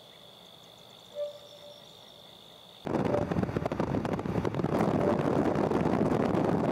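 A quiet steady high-pitched hum, then about three seconds in a sudden loud, crackling rushing roar starts and holds: a speed sound effect for a small flying creature racing past, as if breaking the sound barrier.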